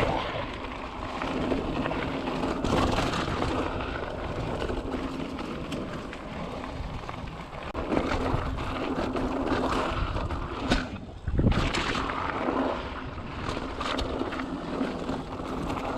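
Mountain bike riding on a dirt trail: tyres rolling over the ground with scattered knocks and rattles, and wind buffeting the microphone.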